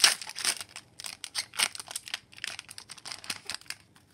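Foil wrapper of an Upper Deck hockey card pack crinkling in the hands as it is opened, in irregular crackles that are loudest at the start and stop just before the end.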